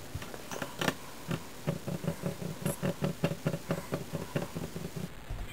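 Fingers tapping rhythmically on a desk, about four to five quick taps a second, keeping on for several seconds.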